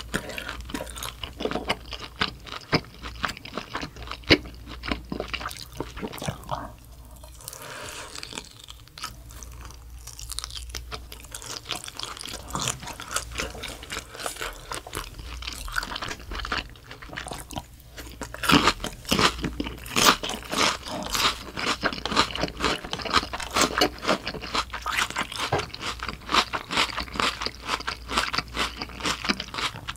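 A person chewing and crunching food: dense, crisp crunching, quieter for a stretch in the middle, then louder and busier over the last ten seconds or so.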